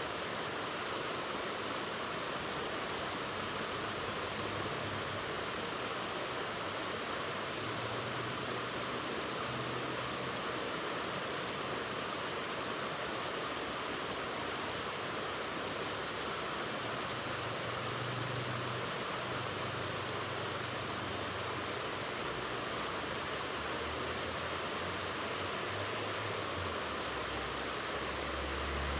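Waterfall: falling water rushing steadily, an even hiss spread from low to high pitches without a break.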